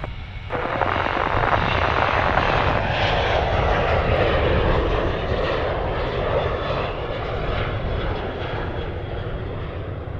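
Southwest Airlines Boeing 737's twin jet engines at takeoff power as the airliner lifts off and climbs away. A loud, steady roar with deep rumble swells up about half a second in and slowly fades over the last few seconds as the jet climbs out.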